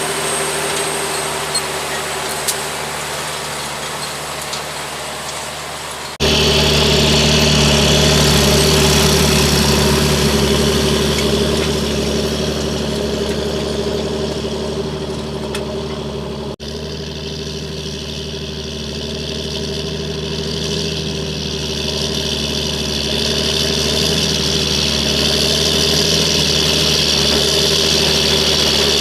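John Deere 8320 tractor's six-cylinder diesel engine running steadily while pulling a cultivator. The sound jumps louder abruptly about six seconds in and changes again suddenly just past the middle, with a steady engine note throughout.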